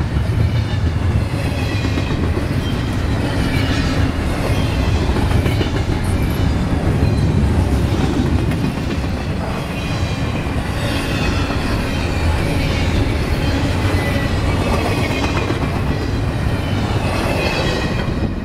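Double-stack intermodal container well cars rolling past: a steady rumble and clatter of steel wheels on the rails.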